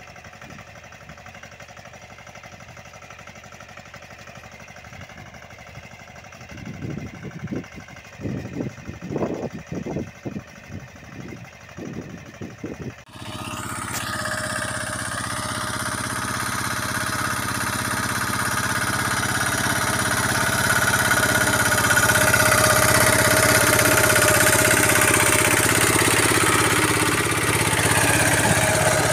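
Bullet mini tractor engine running while it pulls an inter-row cultivator, faint at first, with irregular low thumps from about six seconds in. About thirteen seconds in the sound cuts to a much louder, close engine with a steady tone that grows louder over the next several seconds.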